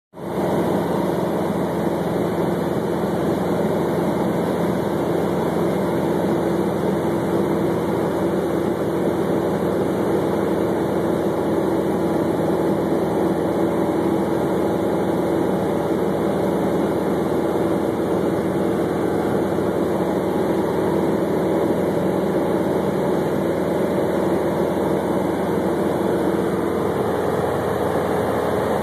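Light aircraft's engine and propeller running steadily in cruise flight, a constant hum with no change in pitch, heard from inside the cabin.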